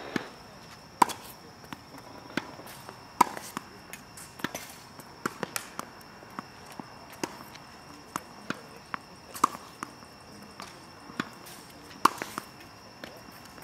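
Tennis volley practice: sharp pops of a racket striking a tennis ball, the loudest every few seconds, with fainter knocks of the ball bouncing and the other end's shots between.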